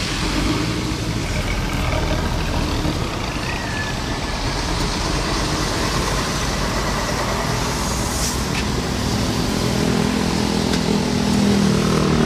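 Bus engine running steadily amid road and terminal traffic noise, with a short hiss about eight seconds in and the engine note growing stronger near the end.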